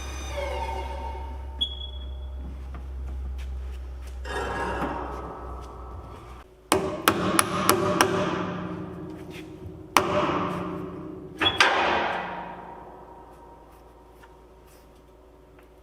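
A hammer striking metal: a quick run of about five blows, then single blows about two and three and a half seconds later, each leaving a ringing tone that dies away. Before the blows a low steady hum runs and stops about six and a half seconds in.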